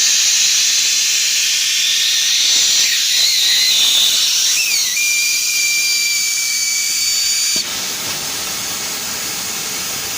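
Hot-air PVC welding machine blowing air, a loud steady hiss. About halfway through, a whistle wavers in and holds a steady note. A couple of seconds later it cuts off suddenly, leaving a quieter, even rush of air.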